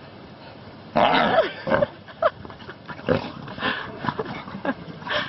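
Play vocalisations from a white lion cub, a white tiger cub and a brindle bulldog-type dog tussling together. A loud rough call comes about a second in, followed by a string of short grunting calls every half second or so.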